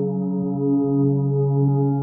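Moog Matriarch analog synthesizer with a triangle-wave patch, filtered through a Rossum Morpheus Eurorack filter, holding a sustained ambient chord of several steady tones. The chord gently swells and eases in level.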